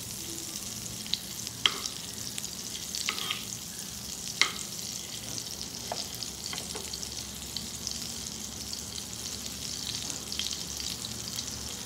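Butter melting and sizzling in a nonstick frying pan over a low gas flame, a steady frying hiss. A metal spoon stirring it clinks against the pan a few times, the sharpest clink about four seconds in.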